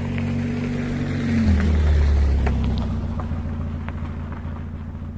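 Peugeot 206's 1.6-litre 16-valve four-cylinder petrol engine is held at raised revs, then released about a second and a half in, the pitch falling back toward idle. It settles into a steady lower running note.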